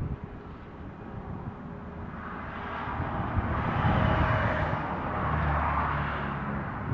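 A motor vehicle's engine passing nearby, rising in level to a peak about four seconds in and then easing off.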